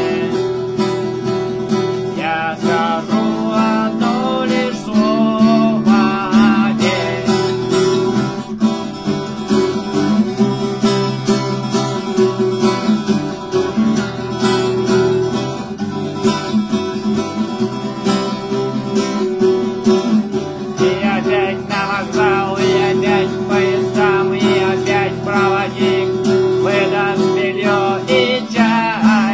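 Music: an instrumental passage of a song led by acoustic guitar, with a wavering melodic line over steady chords.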